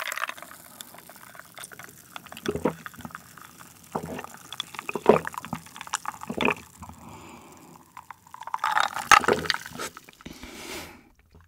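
Iced cola drunk from a glass close to the microphone: a series of gulping swallows about a second or so apart, with a louder burst of sound about nine seconds in.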